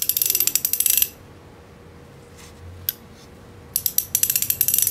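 Super Tool ratcheting ring spanner's ratchet clicking rapidly as it is worked: it stops about a second in, gives one click near three seconds, then clicks rapidly again near four seconds. A crisp, solid ratchet action, working perfectly.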